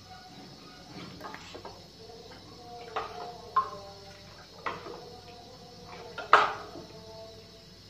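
Metal ladle stirring thin batter in a plastic bowl, clinking and knocking against the bowl a few times, the loudest knock about six seconds in.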